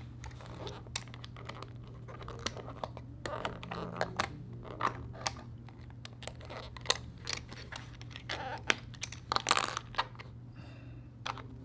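Plastic jigsaw puzzle pieces clicking and scraping as they are slid, turned and pushed into a plastic tray, in irregular taps with a few louder clicks.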